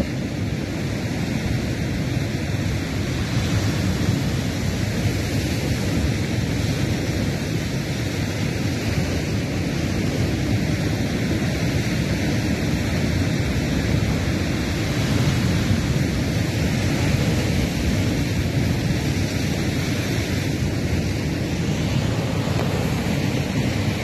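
Heavy surf breaking and churning against a rocky shore: a continuous low rumble of waves that swells and eases, with wind buffeting the microphone.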